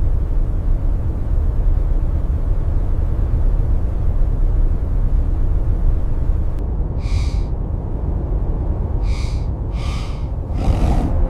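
Steady low blizzard wind blowing, with four short pitched animal calls starting about two-thirds of the way in.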